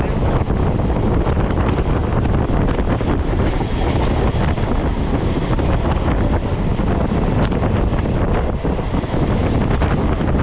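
Wind buffeting the microphone from a moving EMU electric local train, over the steady rumble of the train running on the track.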